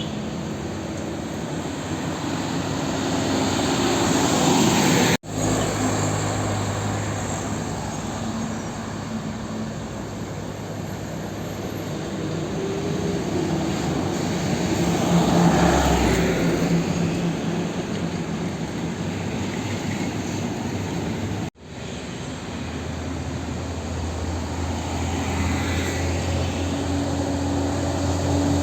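Heavy diesel trucks driving past on a road, with engine drone and tyre rumble swelling as each one nears and passes. The sound is broken by two abrupt cuts, about 5 s and 21 s in.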